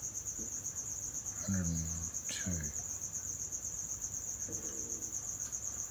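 Cricket trilling steadily, a high, rapidly pulsing song.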